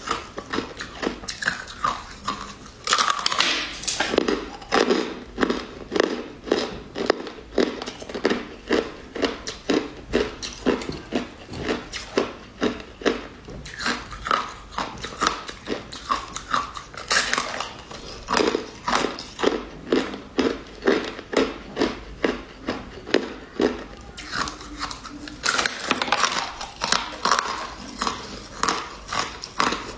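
Close-miked crunching and chewing of hard, icy chunks in the mouth, about two sharp crunches a second. A bigger, crisper bite into the pile comes three times: a few seconds in, just past halfway, and near the end.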